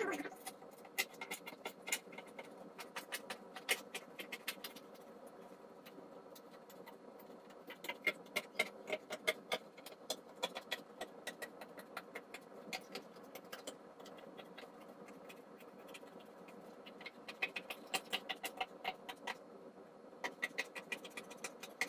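Scissors cutting corrugated cardboard: runs of crisp snips and crunches, coming in several bursts with short pauses between.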